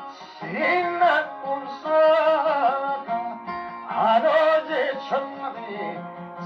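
A man singing a song in phrases with held, bending notes, accompanying himself on an acoustic guitar.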